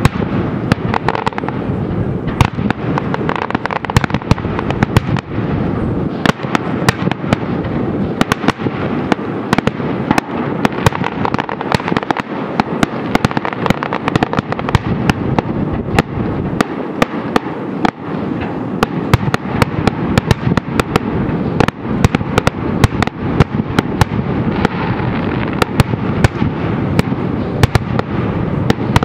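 Fireworks display going off in a dense, unbroken barrage: rapid sharp cracks and bangs, several a second, over a continuous crackle, at a steady loudness.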